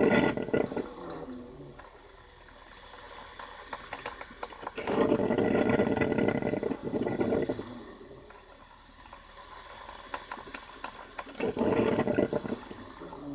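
Braun Type 4085 drip coffee maker brewing: gurgling, hissing spurts of water and steam come in bursts about every six seconds, three times, with a softer hiss between them.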